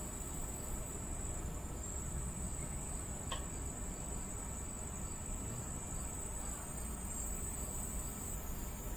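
Crickets trilling steadily in one high, unbroken tone, over low background noise.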